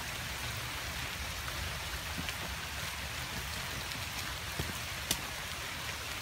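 Heavy rain falling steadily, with a few sharp ticks of single drops.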